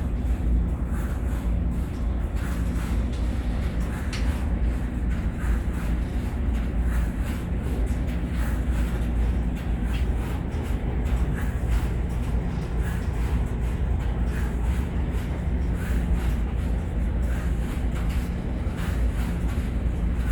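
Laundromat washers and dryers running: a steady low rumble with a faint hum, and scattered light ticks.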